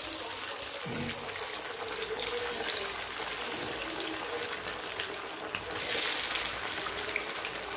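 Masala-coated fish pieces deep-frying in hot oil, a steady loud sizzle with fine crackles.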